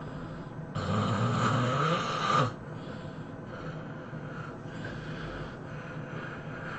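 A person snoring: about a second in, one loud, rasping snore lasts nearly two seconds and cuts off abruptly, followed by quieter snoring breaths.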